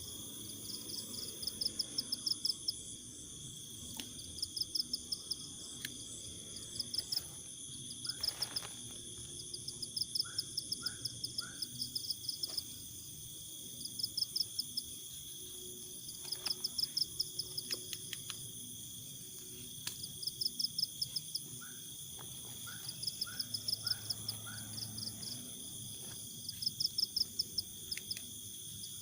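Night insects: crickets chirping in rapid pulsed trains that repeat every second or two over a steady high-pitched insect drone, with a few short lower chirps from another animal twice along the way.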